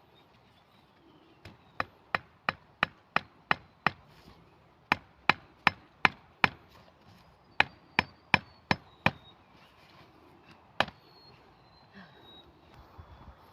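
Tent stakes being hammered into the ground: three runs of sharp blows at about three a second, then a single last blow.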